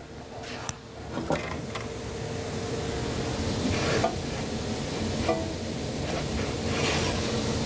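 A few light clicks, then a radial arm saw running and cutting a test groove in a scrap piece of wood, its sound growing louder over the first few seconds and then holding steady. It is a test pass after the blade has been lowered slightly for a dado that was fitting a little tight.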